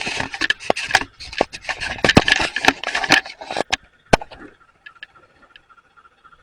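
Scraping and rubbing, broken by many sharp clicks and knocks, that stops about four seconds in.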